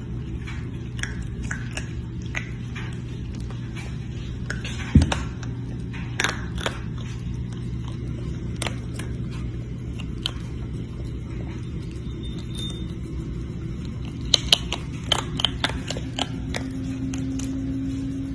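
Baby raccoon chewing crunchy snacks: small crisp crunching clicks come irregularly, with a louder knock about five seconds in and a run of louder crunches near the end.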